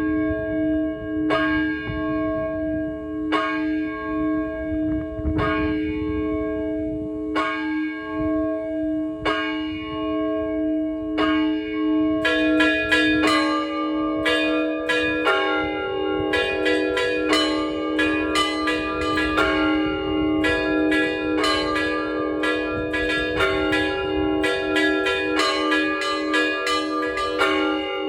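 Cathedral bells rung by a bell-ringer. A bell is struck about every two seconds, and a little before halfway through, smaller, higher bells join in quick strokes in a full peal.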